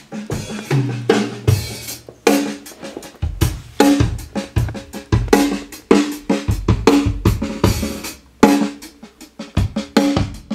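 Drum kit playing a steady groove: bass drum and snare hits repeating about twice a second, some with a ringing pitched drum tone.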